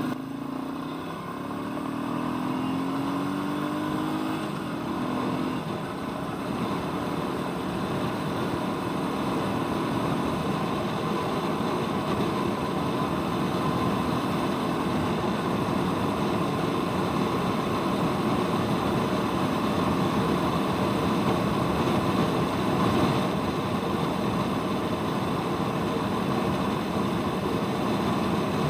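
Royal Enfield Meteor 350's single-cylinder engine under way, its pitch rising over the first five seconds as the bike accelerates, then running steadily at speed with wind and road noise.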